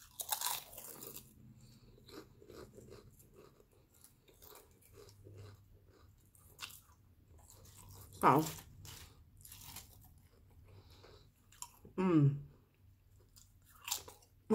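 Potato chips being bitten and chewed close to the microphone: a run of crisp, irregular crunches, loudest just after the start.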